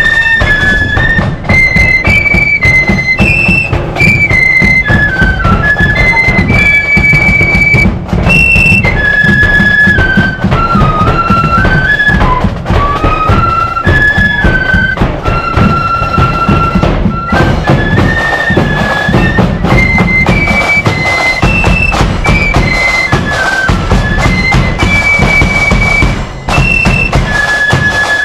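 Marching flute band playing a tune in unison, one high melody stepping up and down over steady bass drum beats.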